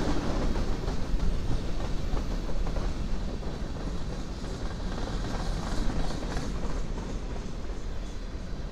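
Freight train of covered hopper cars rolling past, steel wheels rumbling and clacking over the rail joints. The noise eases a little over the last few seconds.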